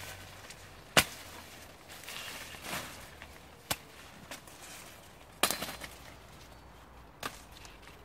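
Dry maize plants being handled during harvest: four sharp snaps, the loudest about halfway through followed by a brief rattle, with rustling of dry leaves and husks in between.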